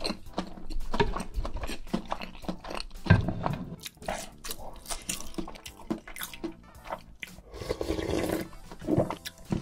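Close-up eating sounds: a wooden spoon scooping in a bowl of noodle soup, chewing with many small mouth clicks, and a wet slurp of broth from the spoon about eight seconds in.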